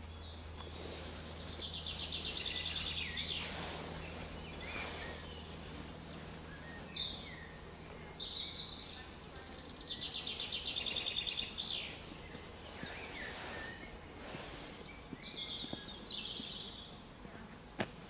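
Several songbirds singing over one another, with short whistles and chirps. One bird repeats a fast trill, near the start and again about halfway through, over a low steady hum.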